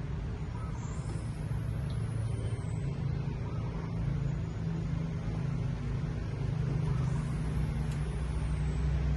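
A steady low engine hum, like a motor vehicle running.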